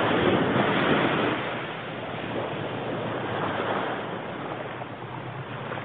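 Sea surf breaking and washing up the sand, loudest in the first second or so, then easing to a steadier, lower wash.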